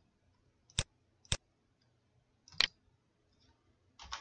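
A few separate sharp clicks from a computer keyboard and mouse: three single clicks, then a quick pair near the end.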